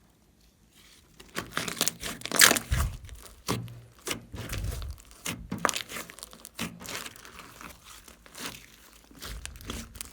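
Glossy slime being squished and stretched by hands, giving a dense run of sticky pops, clicks and crackles with a few low squelching thuds, starting about a second in.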